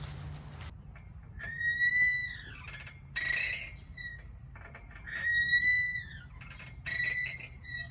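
Metal swing set's chain hangers squeaking as a swing goes back and forth: a rising-and-falling squeal of about a second, twice and about three seconds apart, with a shorter squeak near the end.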